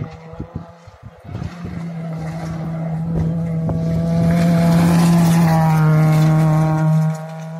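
Rally car engine held at high revs on a gravel stage, its steady note growing louder as the car approaches, then stopping abruptly near the end.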